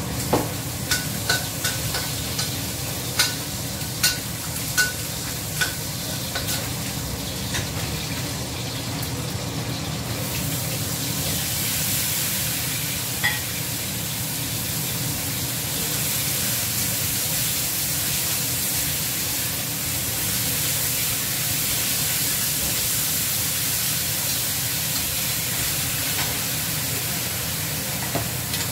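A metal spatula clinking and scraping against a steel wok in a row of sharp clicks. About ten seconds in, a louder steady sizzle takes over as enoki mushrooms and vegetables fry in the hot wok.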